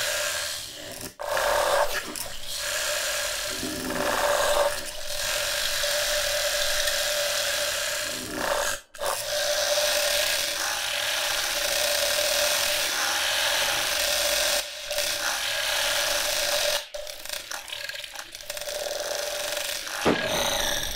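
Planetarium, a four-engine granular instrument for UVI Falcon, playing a dense, grainy synthesized texture with a steady tone running through it. It cuts out for an instant about a second in, near the middle and again later, and high falling glides come in at the very end.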